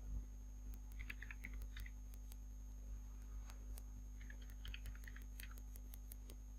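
Faint clicking of computer keyboard keys as a number is typed, in two short runs, about a second in and again around four to five seconds in, over a steady low electrical hum.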